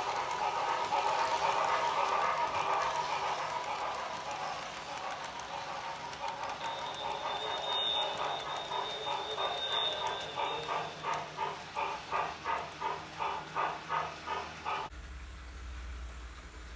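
Model freight train cars rolling along the layout track: a steady rolling rumble that turns into rhythmic clicking of wheels over rail joints, about two a second, with a thin high whine for a few seconds around the middle. The sound drops away suddenly near the end as the last car passes.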